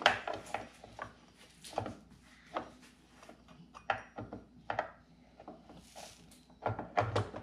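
Husqvarna chainsaw side cover being fitted over the bar and worked to line the chain tensioner up with the bar's hole: irregular clicks and knocks of plastic against metal, with a quick cluster of knocks near the end.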